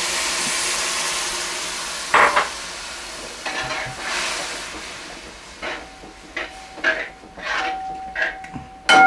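Thin coconut milk poured into a hot curry in a metal pot, sizzling at first and dying down over a few seconds. Then a ladle stirring, scraping and clinking against the pot, with a louder ringing clank near the end.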